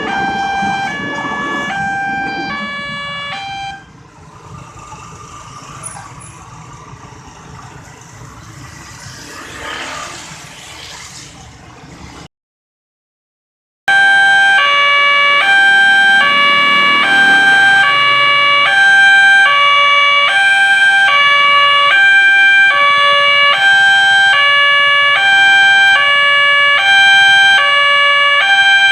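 Railway level-crossing warning siren sounding through a horn loudspeaker, an electronic tone alternating steadily between two pitches. It stops about four seconds in, leaving quieter street noise, then after a second and a half of silence it comes back louder and keeps alternating.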